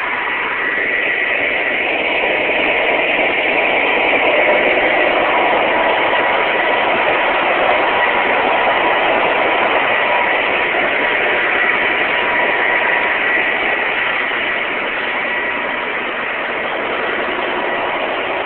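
A gas drilling rig's machinery running together in a loud, steady din, with a thin high whine held through it.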